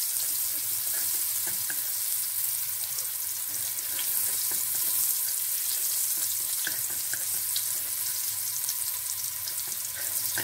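Sliced shallots sizzling steadily in hot oil in a metal wok, with light scrapes and ticks of a spatula stirring them.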